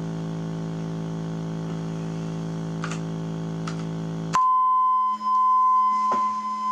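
Small loudspeaker driven by a Brüel & Kjær Type 2706 power amplifier from a signal generator, sounding a low steady tone rich in overtones, with two light clicks near the three-second mark. About four and a half seconds in, the sound switches abruptly to a steady pure 1 kHz test tone.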